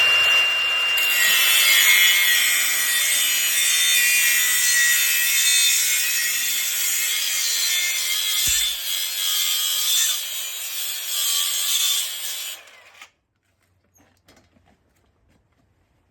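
Angle grinder cutting and grinding into the ATV's metal frame: a steady high whine with a rasping hiss, the pitch dropping slightly about a second in as the disc bites. It runs for about thirteen seconds, then stops abruptly.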